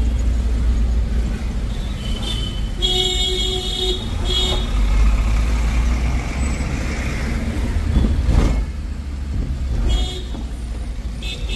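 City road traffic rumbling steadily, with a vehicle horn honking for about a second roughly three seconds in and briefly again just after. A louder swell, like a vehicle passing close, comes around eight seconds in.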